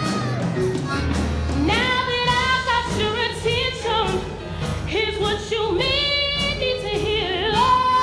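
A woman singing a show tune with long, sliding notes over a live band with bass and a steady drum beat; her voice comes in about two seconds in.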